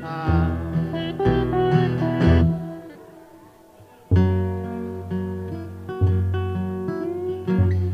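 Acoustic guitar strummed together with a Stratocaster-style electric guitar, playing a song live with strong low notes under it. The music breaks off about two and a half seconds in and the guitars come back in together, full strength, about a second and a half later.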